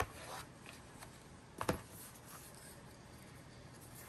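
Small cardboard screen-protector box and packets being handled on a desk: light rustling with two clicks, the sharper one about a second and a half in.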